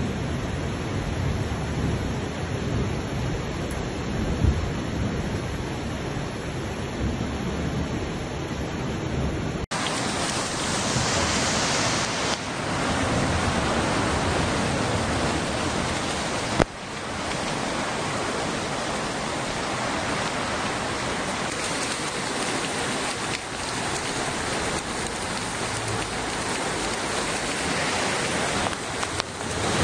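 Heavy rain and fast-flowing floodwater rushing down a street, a steady, dense noise. Its character changes abruptly about a third of the way in and again a little past halfway, with one brief bump about four seconds in.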